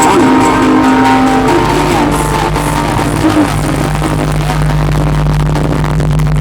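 DJ loudspeaker system playing bass-heavy music at high volume: a pitched melody in the first couple of seconds gives way to a sustained deep bass drone.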